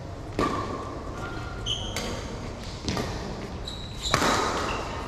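Badminton rally: about four sharp racket strikes on the shuttlecock, roughly a second apart, the loudest near the end being a jump smash that rings on in the hall. Short high squeaks of court shoes on the mat come between the hits.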